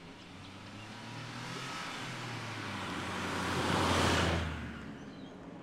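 Daihatsu Hi-Jet mini truck's small three-cylinder engine and tyres passing by: the sound swells as the truck approaches, is loudest about four seconds in as it goes past, then fades away.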